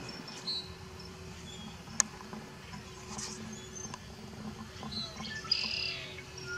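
Faint outdoor birds chirping in short high notes scattered through, with one sharp click about two seconds in.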